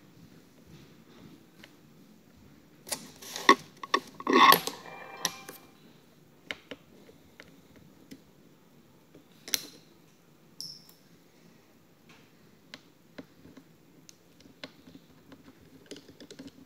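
Small clicks and taps of a tri-wing battery screwdriver working the battery screws inside an open MacBook Pro, with a louder burst of handling clatter about three to five seconds in and a brief high squeak about ten seconds in.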